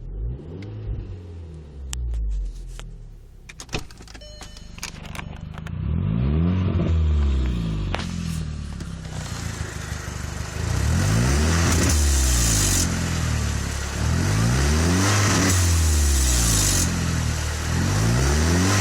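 Volkswagen Golf GTI Mk5's 2.0-litre turbocharged four-cylinder engine revving up and dropping back again and again, with several sharp clicks between about two and five seconds in. A loud hiss joins it from about six seconds in. The owner calls the car's noise a weird sound, and its cause is not named.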